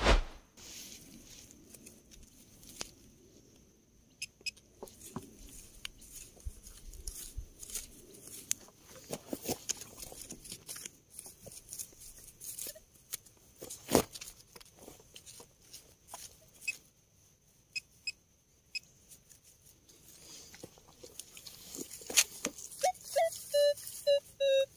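Digging in soil to recover a metal-detector target: scattered scrapes, crunches and knocks of a digging tool in dirt, with two loud knocks, one at the start and one about halfway through.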